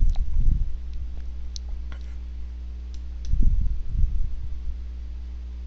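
Computer mouse clicks as fonts are picked from a drop-down list, over a steady electrical hum. Two short bouts of low rumbling, one at the start and one about three and a half seconds in, are the loudest sounds.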